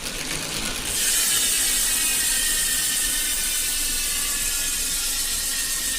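Unbranded bicycle hub's freehub ratcheting as the wheel spins, its pawl clicks running together into a steady, high-pitched buzz that comes in loudly about a second in.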